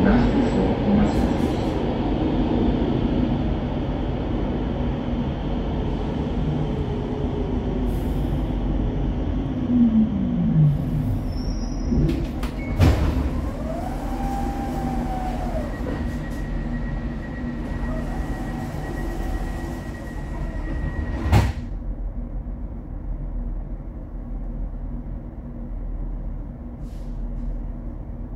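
Subway train heard from inside the car: a steady running rumble, with a motor whine that falls in pitch as the train slows. Two sharp knocks follow, about 13 and 21 seconds in, and the car settles to a quieter steady hum near the end.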